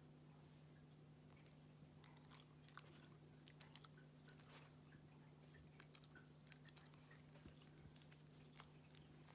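Faint, irregular clicks of a small mame shiba dog chewing, starting about two seconds in, over a steady low hum.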